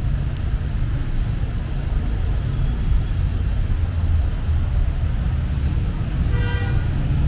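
Street traffic: a steady low rumble of passing cars and buses, with a brief pitched tone about six and a half seconds in.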